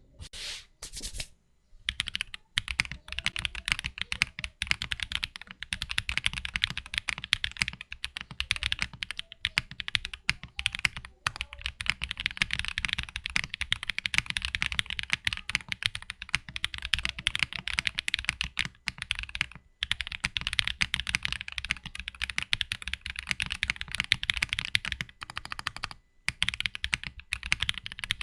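Fast typing on a mechanical keyboard fitted with Kinetic Labs Salmon tactile switches: a dense, steady run of key clacks, broken by a few short pauses.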